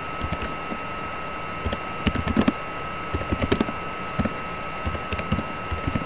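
Typing on a computer keyboard: irregular runs of quick key clicks with short pauses between words. A steady faint tone hums underneath.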